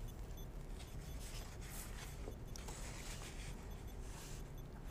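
Faint rustling of paper sheets being handled, a few short brushes over a low, steady room hum.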